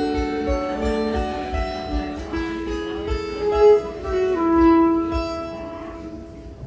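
Mountain dulcimer and fiddle playing a slow tune together in long held notes, the sound dying away over the last couple of seconds.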